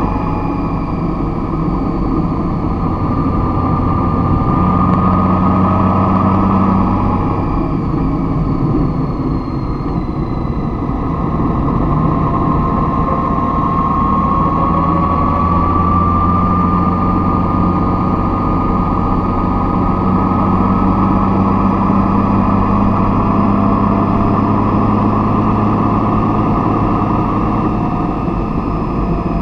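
A vehicle's engine running steadily with a low, continuous hum and a faint tone that rises slowly around the middle.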